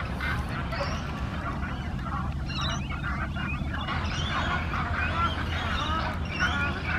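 A flock of waterbirds calling: many short honks and squawks overlapping, growing busier about halfway through, over a steady low rumble.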